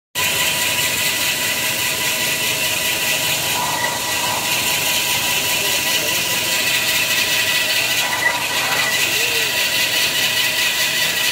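Manual band-saw kitchen towel roll cutting machine running, its blade cutting paper rolls as they are fed in: a steady, unbroken machine whine over a hiss.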